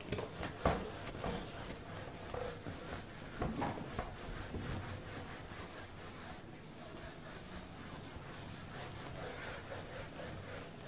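A handheld eraser block rubbing across a whiteboard, wiping off marker writing in repeated strokes. A few sharp knocks come in the first four seconds.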